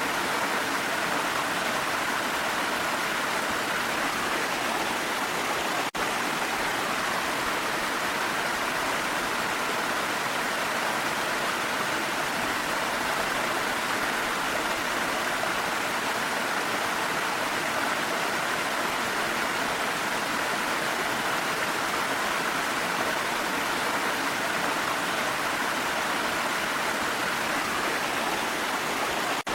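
Waterfall and mountain rain rushing steadily, an even unbroken wash of water noise, with a momentary dip in level about six seconds in.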